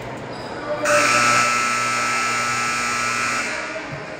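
Gymnasium scoreboard horn sounding one long, steady buzz of about three seconds, starting suddenly about a second in.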